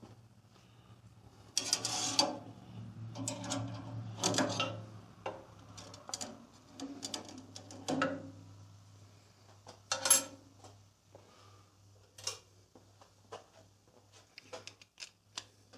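Hard parts and tools being handled and set down on the bandsaw and workbench: irregular clatters and knocks, the loudest about 2, 4.5 and 10 seconds in, over a faint steady low hum.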